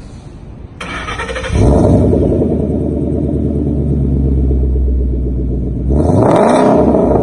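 Ford Mustang engine cranked by the starter, catching about a second and a half in with a loud flare, then settling into a steady idle. Near the end it is revved once, the pitch rising and then dropping back.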